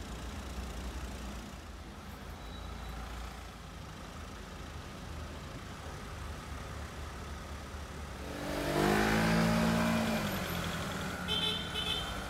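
Street traffic: cars idling and creeping forward in a queue, with a low steady engine rumble. About eight seconds in, one vehicle's engine runs up close and louder for about two seconds. Near the end come a few short high-pitched beeps.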